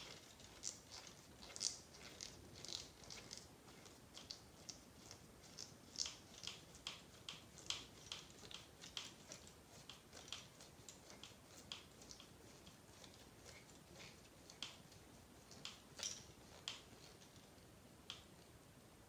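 Hand hex driver turning a long screw into a plastic RC buggy transmission case: faint, light clicks and ticks at irregular spacing, a couple a second, thinning out near the end.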